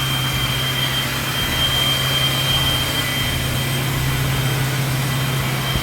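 Steady mechanical drone: a constant low hum with a thin high whine on top, holding even throughout.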